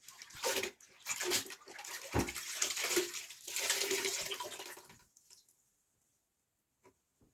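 Water running and splashing for about five seconds, then stopping, with a couple of faint clicks near the end.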